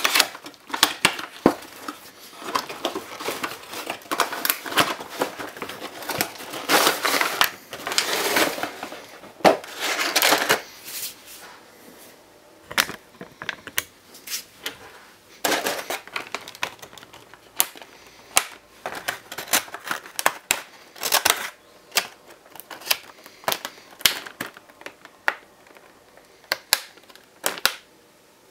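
Cardboard box and clear plastic blister tray being handled during unpacking: scraping and rustling for about the first ten seconds, then scattered sharp plastic clicks and taps.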